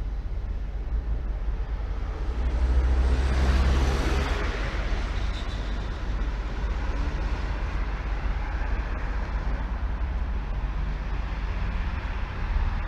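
Road traffic noise with a steady low rumble; a vehicle passes, swelling about two to five seconds in.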